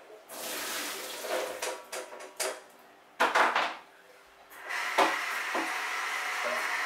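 A metal cooking pan handled in a kitchen: pots and pans clatter, with the loudest clatter a little past halfway. About five seconds in, a steady hiss starts and runs on.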